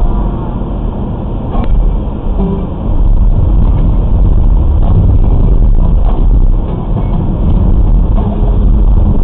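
Road noise from a car driving on a packed-snow and icy road, heard inside the cabin: a steady low rumble of tyres and engine that grows louder about three seconds in.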